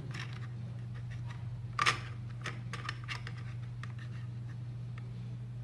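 Plastic keyboard case parts being handled and fitted together: scattered light clicks and taps, with one louder short scrape about two seconds in, over a steady low electrical hum.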